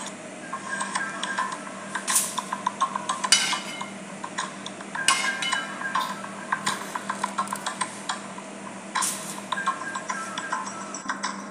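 Metal spoon scraping and clinking against a metal pan while spooning juices over a whole chicken, with a few sharper clinks scattered through.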